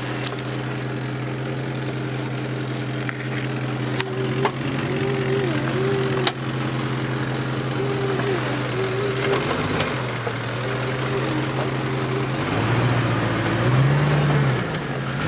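Jeep Grand Cherokee running as it crawls up over a large trail rock: a steady engine and drivetrain whine that wavers in pitch now and then, and near the end rises and falls several times as the throttle is worked. A few sharp knocks are heard along the way.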